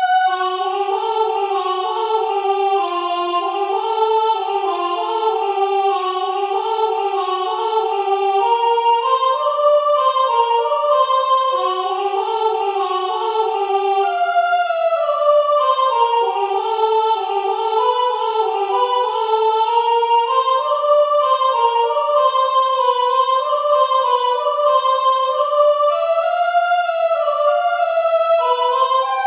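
A soprano voice singing a cappella in several overdubbed parts: slow melodic lines overlap, two or more notes sounding at once and moving against each other.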